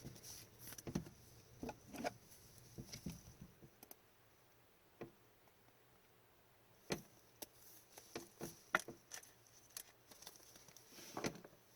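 Soft clicks and taps of hockey trading cards being handled and flipped through one by one, with a quiet pause of about three seconds in the middle.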